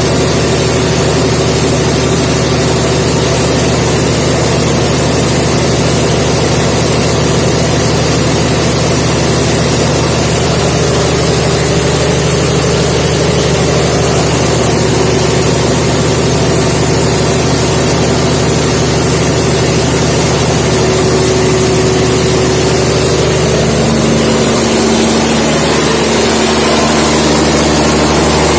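600 kVA diesel generator engine running steadily with a loud, even drone. About three-quarters of the way through its note shifts and briefly wavers before settling into a new steady tone.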